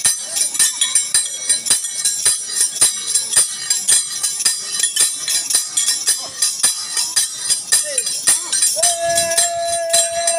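Kamsale, the bronze hand-cymbals of the Kannada folk dance, clashed in a steady rhythm of about three to four bright, ringing strikes a second. Near the end a steady high note comes in over the clashing.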